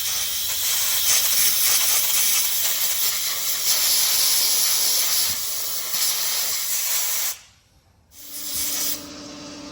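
Compressed air hissing from a blow gun, blasting built-up debris off a small engine's auto-choke and carburetor. It cuts off about seven seconds in and gives one short second burst. A quieter steady hum is left near the end.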